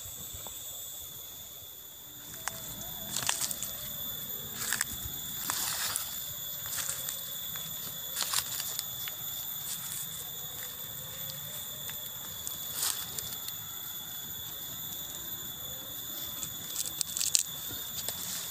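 A steady, high insect chirring drones on throughout, with irregular crackling clicks scattered over it from movement through the dry twigs and litter of a muddy riverbank. The loudest clicks come about three seconds in and near the end.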